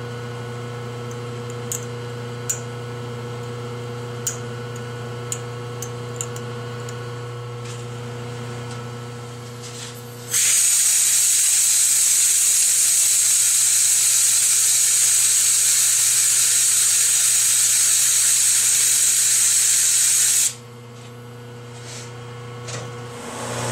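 Compressed air blowing loose copper debris out of the slots of a starter-motor armature's commutator: a loud steady hiss that starts suddenly about ten seconds in and cuts off about ten seconds later. Before it there is a steady low hum with a few faint ticks.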